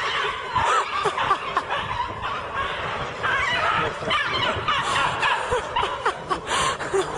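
People laughing and snickering, a dense run of short laughs.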